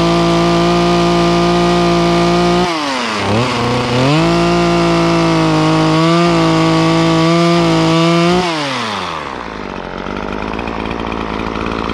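Two-stroke chainsaw cutting a felling notch into a small tree trunk: it runs at full throttle, drops off briefly about three seconds in, revs up and cuts again for about four seconds, then falls back to idle about nine seconds in.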